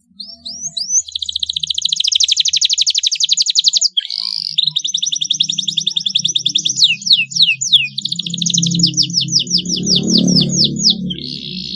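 Canary singing long, rapid trills of high repeated notes, with a brief break about four seconds in and a stretch of slower, downward-sweeping notes past the middle before the fast trill returns.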